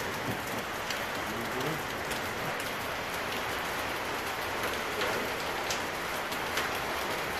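Steady hiss like rain pattering, with scattered light ticks.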